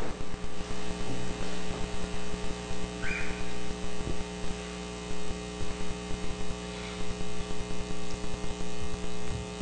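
Electrical mains hum in the audio feed: a steady buzz made of a stack of tones that cuts in and out irregularly, jumping between loud and quieter in choppy blocks.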